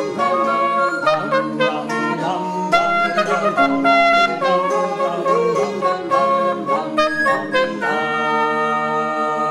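Early-music ensemble playing: a wooden wind pipe with a reedy sound carries a quick melody over a steady low drone, with plucked or struck string notes. About eight seconds in, the players settle on a held chord.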